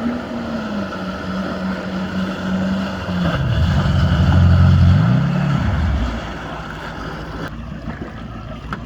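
Yamaha jet ski engine running. About three seconds in its note drops lower and grows louder, then climbs back up, and it runs quieter near the end.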